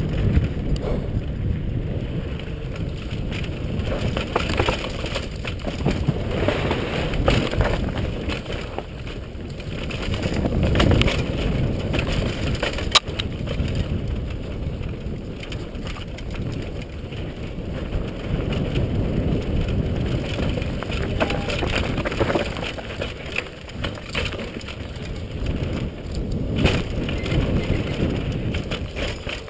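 Mountain bike riding fast down a dry dirt trail: wind on the microphone and tyres running over dirt and stones, with rattles and knocks from the bike on bumps, one sharp knock about halfway through.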